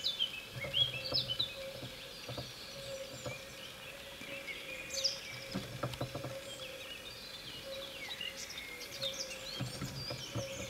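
Many songbirds chirp and trill over a faint steady hum. A white wagtail flutters and pecks at a car's wing mirror, giving clusters of soft wing-flutters and taps around a second in, around six seconds in and near the end.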